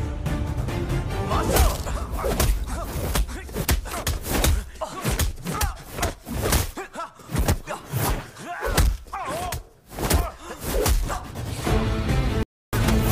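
Action background music with a rapid string of punch and hit sound effects and whooshes laid over it. The sound cuts out completely for an instant near the end.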